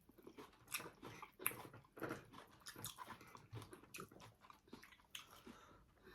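Close-miked eating sounds: a person chewing, with soft irregular mouth smacks and wet clicks.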